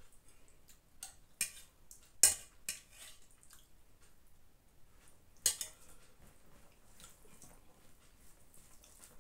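A metal spoon clinking against a metal pot a few times as gravy is scooped out, with the loudest clink a little over two seconds in and another about five and a half seconds in.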